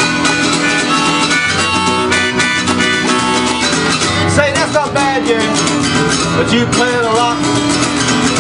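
Blues played on harmonica and acoustic guitar: steady strummed guitar chords, with the harmonica's notes bending and wavering from about halfway through.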